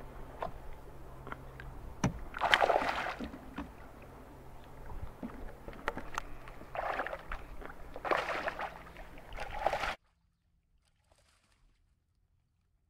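A hooked fish thrashing at the surface beside a boat while a landing net is dipped in for it: several bursts of splashing and sloshing water with a few sharp knocks. The sound cuts off to near silence about ten seconds in.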